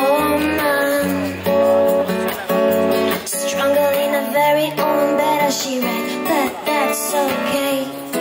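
Live band playing: a woman sings lead into a microphone over strummed acoustic guitar.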